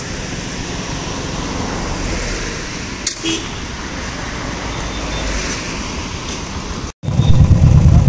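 Steady road traffic and motorcycle engines running, with a short click about three seconds in. After a sudden break near the end, nearby motorcycle engines idle much louder, with a strong low rumble.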